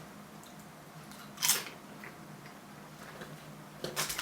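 A single crisp crunch of a potato chip being bitten, about a second and a half in, with faint chewing clicks near the end.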